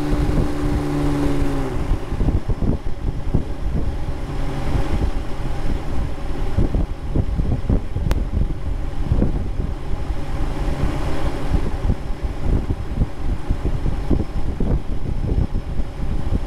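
Microlight trike's engine drone drops in pitch about two seconds in, as if throttled back, and gives way to heavy wind buffeting the microphone in flight. A single sharp click about eight seconds in.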